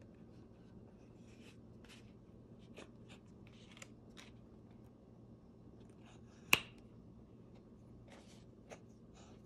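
Leather-covered powder flask with a brass top being handled: faint, scattered rubbing and scratching of fingers on the leather and brass. One sharp click comes about two-thirds of the way through, and a softer one follows near the end.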